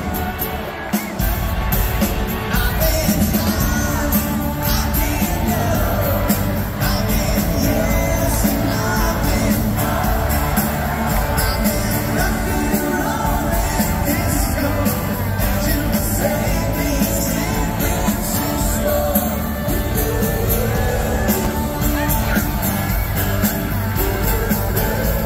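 Live pop-rock band playing with singing: drums, electric guitars and bass, recorded from within the audience.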